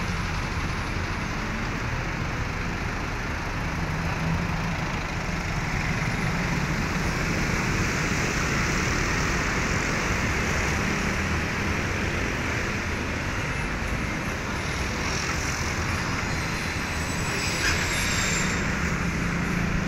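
Diesel engine of an ALS coach bus idling steadily, running normally again after air in its fuel line, left by a fuel filter change, was bled out.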